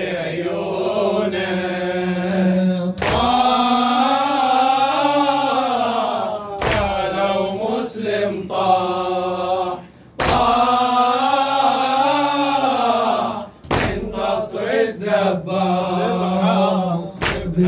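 A male radood chanting a Shia latmiya lament in Iraqi Arabic: one voice in long, wavering melodic phrases, with a sharp thump about every three and a half seconds marking the beat.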